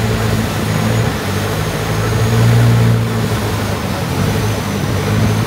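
Motorboat engine running steadily at a low pitch, briefly louder about two and a half seconds in.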